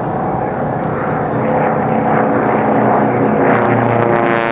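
Racing AT-6 Texans' nine-cylinder radial engines and propellers at full power, growing louder as the planes approach. A strong engine-and-propeller tone becomes clear over about the last second.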